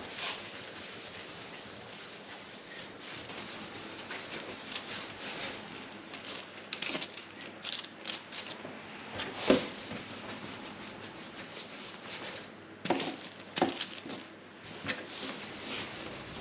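Bun dough balls being rolled by hand on a bench: soft rubbing and scattered knocks over a steady background hiss, the loudest knock about halfway through.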